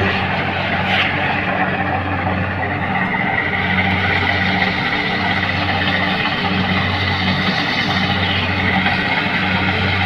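Rice combine harvester's engine running steadily while it cuts through the standing rice, a loud even drone with a brief sharp click about a second in.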